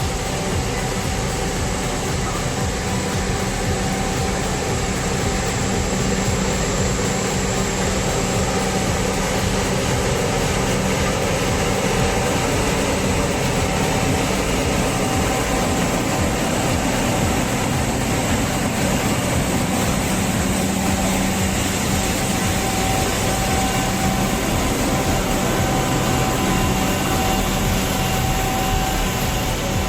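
Heavy machinery's engine running steadily under load, a constant low hum with a fainter steady higher tone over a wash of mechanical noise.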